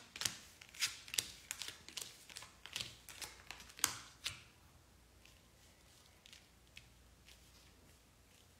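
Fortune-telling cards being handled and laid down: a quick run of light clicks and taps for about four seconds, then a few faint taps.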